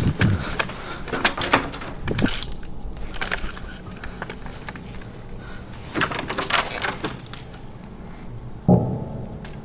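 A door being opened by its lever handle, with scattered clicks of the latch and handle and a dull thump near the end.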